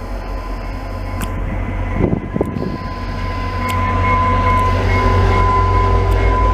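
VIA Rail EMD F40PH diesel locomotive, with its two-stroke V16 engine, rumbling past at the head of a passenger train and growing louder as it comes close. A steady high whine sits over the rumble.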